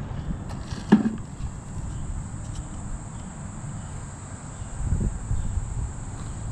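Steady high insect buzz over a low outdoor rumble that swells about five seconds in, with one short knock about a second in.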